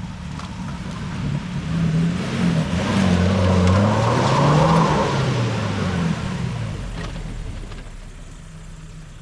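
Maruti Gypsy 4x4's engine revving hard as it drives close past on loose dirt, its spinning wheels throwing up soil. The revs rise and fall and the sound is loudest about three to five seconds in, then fades as the vehicle pulls away.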